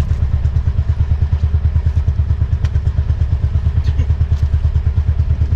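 A small boat engine running steadily, a loud, even low chugging at about ten beats a second.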